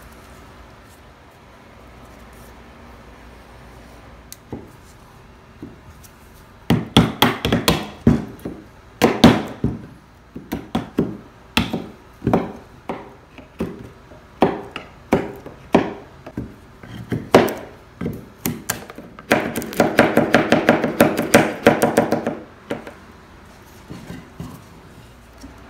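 Wooden mallet striking a chisel into the edge of a cedar board. It is quiet for the first few seconds, then come quick flurries of taps, then single blows about a second apart, and near the end a long, fast run of taps.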